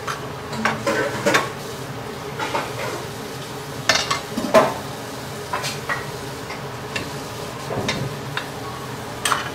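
Steel ladle stirring braised pork ribs and taro in a wok, with irregular knocks and scrapes against the pan, the loudest about four seconds in. The braising sauce simmers with a steady sizzle underneath.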